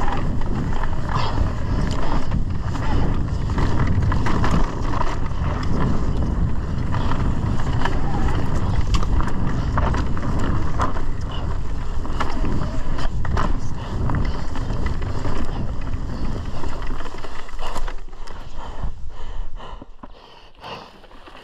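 Mountain bike riding down a dirt trail: wind buffets the microphone over tyre roar, with the chain and frame clattering over the bumps. The noise drops away near the end.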